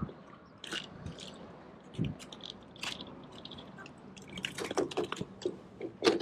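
Footsteps in slide sandals on a wooden pier deck: irregular slaps, clicks and scuffs, bunching up past the middle, with one sharp slap near the end.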